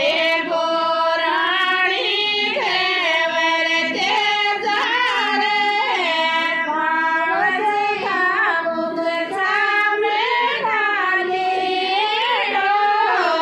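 Female singing of a folk devotional song (geet) to Tejaji Maharaj, in long held notes that bend and glide in pitch.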